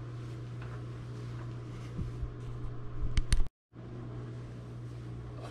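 Steady low hum of a kitchen's room tone, with a few knocks and bumps about two seconds in and again around three seconds in, followed by a split-second gap of total silence.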